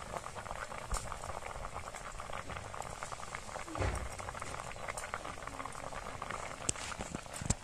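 Peeled boiled eggs frying in hot oil in an iron kadai: a steady, dense crackling and bubbling, with a few louder pops, one about halfway and one near the end.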